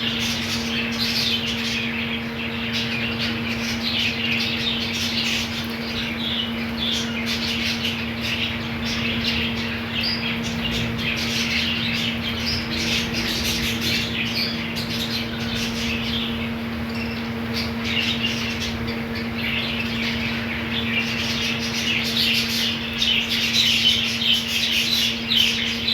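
A colony of budgerigars chattering, chirping and squawking continuously, many birds at once, busier and louder near the end. A steady low hum runs underneath.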